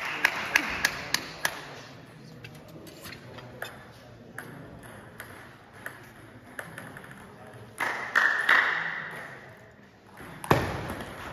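Table tennis ball clicking: a quick run of sharp bounces, about three a second, in the first second and a half, then scattered fainter ticks. A short burst of voice comes about eight seconds in.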